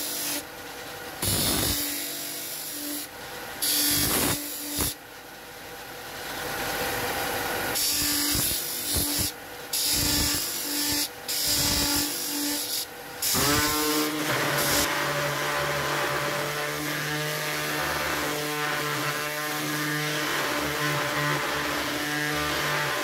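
Ryobi benchtop belt-and-disc sander running with a steady hum, the edge of a curved board pressed to the spinning disc in repeated short grinding passes. About 13 seconds in, a Ryobi random orbital sander starts with a rising whine and then runs steadily on a wooden board.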